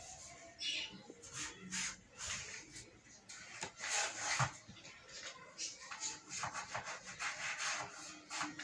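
Cloth rubbed over a wooden bed headboard in repeated, irregular wiping strokes as it is cleaned of dust.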